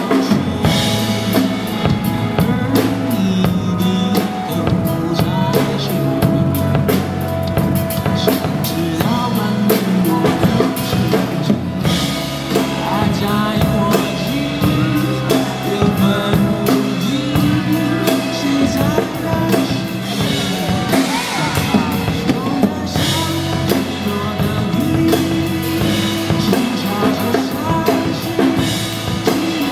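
Acoustic drum kit played live, with bass drum, snare rimshots and cymbals, over a pop song backing track with sustained instrumental notes.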